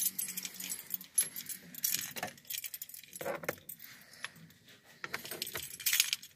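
A bunch of keys jangling and clinking as they are handled, in several short bursts.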